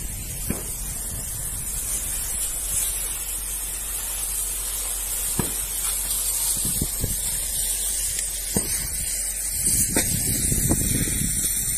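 Steady high hiss of water spray and steam over burning rubble, broken by scattered sharp cracks and pops from the burning debris.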